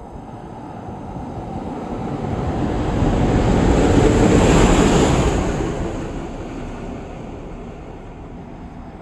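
A class 1142 electric locomotive running light through the station: the rush and rumble of its wheels on the rails builds to its loudest about four to five seconds in as it passes, then fades as it draws away.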